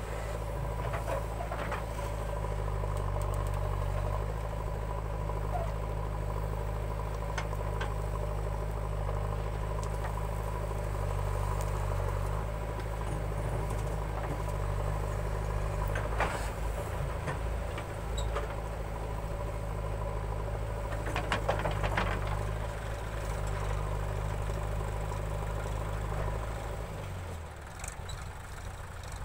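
Diesel engines of a JCB backhoe loader and a tractor running steadily while the backhoe arm digs and loads soil, with a few sharp knocks from the bucket. Near the end the steady engine note breaks up and gets quieter as the loaded tractor pulls away.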